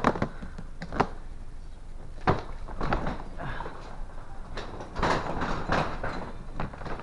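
A loaded delivery cart being pushed, with a series of separate knocks and rattling clatters and a busier stretch of clattering about five seconds in.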